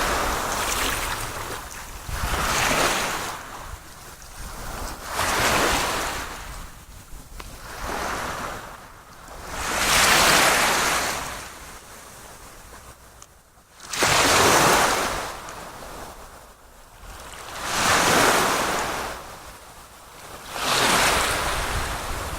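Sea waves washing in, a wash of water noise that swells and fades in surges every three seconds or so.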